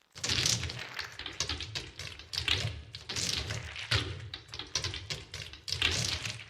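Cartoon suction-cup footsteps sound effect: a quick run of sticky taps and pops, about two or three a second.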